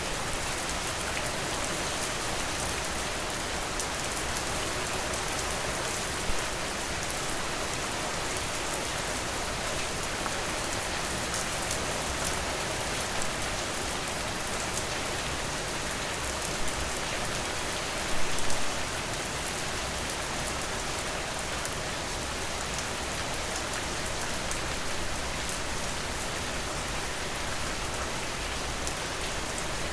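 Steady rain falling, with a few brief louder pops partway through and a short cluster of them just past the middle.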